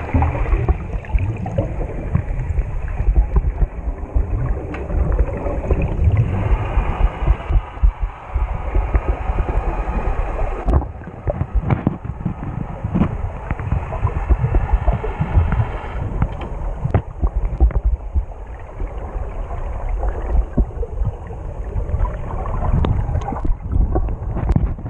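Muffled underwater water noise heard through a camera's waterproof housing: a low, uneven rumbling and throbbing with scattered faint clicks and crackles.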